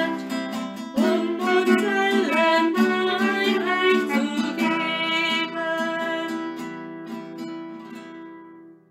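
A hymn sung to acoustic guitar accompaniment, the last chord dying away near the end.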